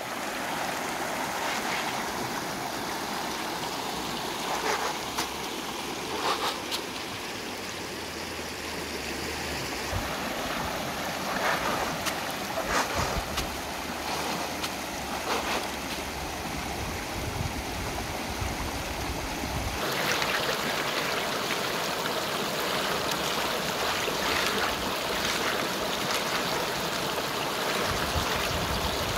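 Fast, muddy river rushing steadily over rocks in rapids, with a few brief splashes along the way.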